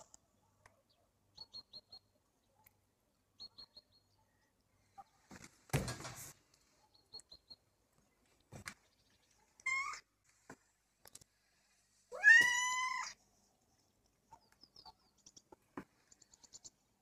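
Domestic cat meowing while waiting for treats: a short meow about ten seconds in, then a longer, louder meow that rises and falls. A dull thump comes about six seconds in, and faint high chirps are scattered throughout.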